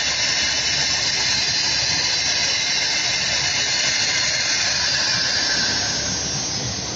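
CNC router spindle milling a recess into the edge of a wooden door, with the dust extraction running: a loud, steady hiss-like machining noise. It eases off about six seconds in, as the spindle lifts clear of the finished pocket.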